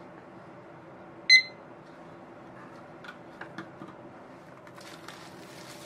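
A digital kitchen timer gives one short, high beep about a second in. A few small clicks follow, then plastic cling wrap crinkles as it is peeled off the dough near the end.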